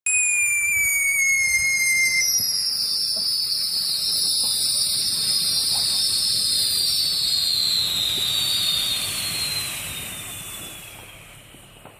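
Several firework whistles shrieking together over a rushing hiss, all sliding slowly down in pitch, then fading away over the last few seconds.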